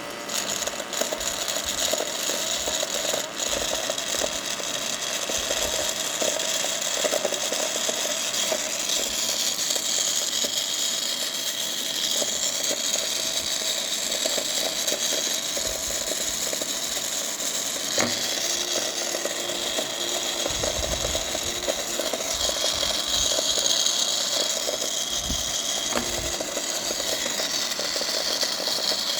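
Battery-powered mini DIY vacuum cleaner running steadily, its small motor and fan whirring with a high hiss, with a couple of brief clicks from the material it is sucking up.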